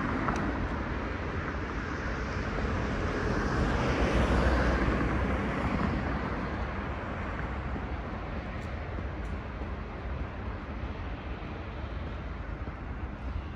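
Road traffic going by: a steady rush of passing vehicles that swells about four seconds in and dies down over the second half.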